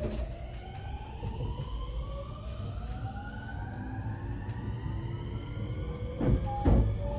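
Mitsubishi IGBT VVVF inverter and traction motors of a JR West 223 series 2000 subseries train accelerating, heard inside the motor car: several whining tones rise steadily in pitch over the low rumble of the running train. A couple of sharp knocks come about six seconds in.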